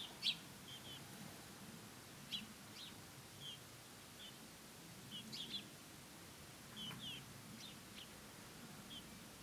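House sparrow chirping: a dozen or so short, high chirps at irregular intervals, over a faint low background rumble.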